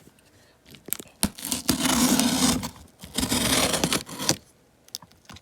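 Cardboard shipping box being opened: a few clicks, then two long tearing strokes as the packing tape along the box seams is cut and ripped open.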